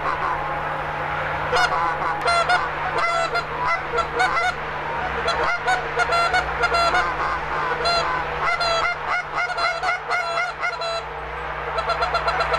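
Canada geese honking as a flock comes in to land: many short honks and clucks overlapping in quick succession.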